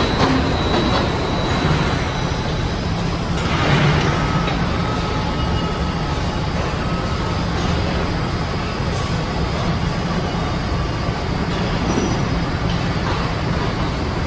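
Steady machinery noise of an automotive assembly line, a low hum with faint tones from equipment and a short hiss about four seconds in.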